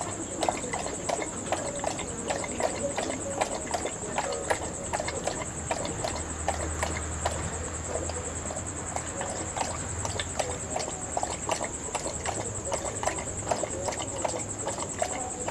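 Dog lapping water, a regular run of quick wet laps a few times a second, over a steady high-pitched whine.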